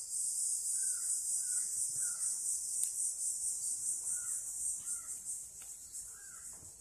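A steady, high-pitched insect trill, with short chirps at a lower pitch coming through several times.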